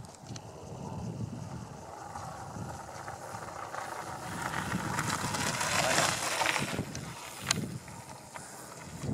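Mountain bike rolling down a gravel track, the tyres on the loose gravel growing louder as it passes close about six seconds in, then fading as it rides away. One sharp click a little after seven seconds.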